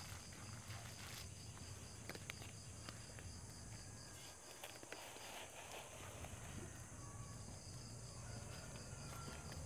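Faint insect chirping outdoors, a rapid even pulse of high chirps over a steady hiss, with a low rumble underneath and a few faint clicks.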